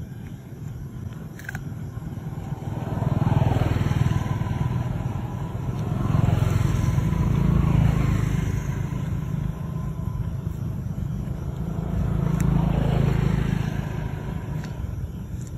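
Motor vehicles passing, their engine rumble swelling and fading three times: about three, seven and twelve seconds in.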